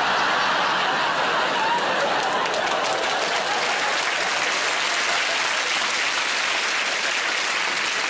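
Studio audience applauding, a long, steady round of clapping.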